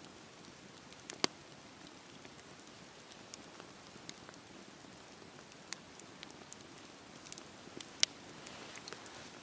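Campfire burning with a soft steady hiss and irregular crackles and pops of burning wood, the sharpest about a second in and near the end.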